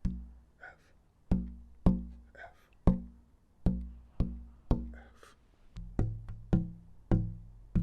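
Pieces of wood tapped one after another, each giving a sharp knock with a short, low pitched ring, as they are sorted by musical note for a wooden sound box. There are about a dozen taps, some in quick pairs. About six seconds in, the pieces ring lower.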